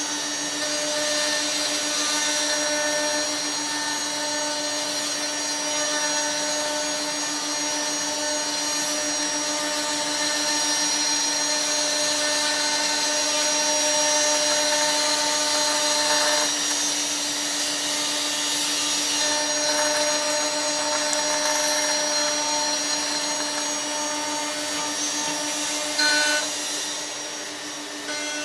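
CNC router's HSD electric spindle running at a steady high pitch while its cutter mills a wooden block, with the hiss and rasp of the cut over it.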